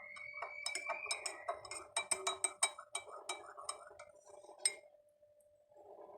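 Hot ginger kahwa poured into cups, with a faint tone that rises over the first second or so as the cup fills. Many light clinks follow over the next few seconds, then it goes quiet near the end.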